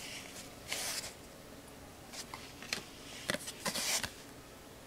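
2018-19 Panini Threads basketball trading cards handled by hand, card sliding over card: a soft swish about a second in, then scattered light taps and swishes toward the end.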